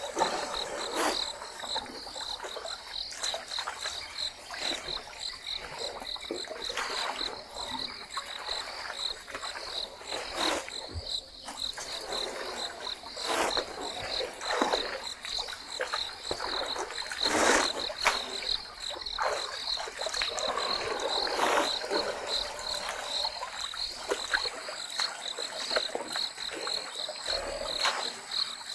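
African elephants drinking at a waterhole: short splashes and sloshes of water every few seconds, the loudest about two-thirds of the way through, over a steady high pulsing insect trill.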